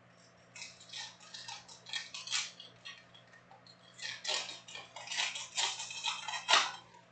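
Foil wrapper of a 2006 Panini World Cup trading-card pack crinkling and tearing as it is pulled open by hand, in two spells of crackling, the second louder and peaking near the end.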